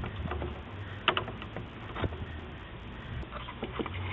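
Small flat-head screwdrivers prying at a plastic dashboard radio face plate: scattered clicks and scrapes of plastic, with a close pair of sharp clicks about a second in and a cluster near the end.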